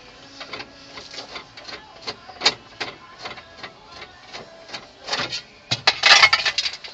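Small hard parts clicking and clattering as they are handled and rummaged through while looking for a replacement screw: irregular taps a few times a second, with a louder rattling clatter about six seconds in.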